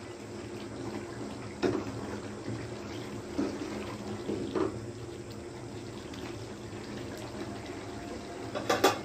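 Chicken curry gravy simmering and bubbling in a steel pan while a steel spoon stirs it, knocking against the pan a few times. A quick cluster of clicks comes near the end.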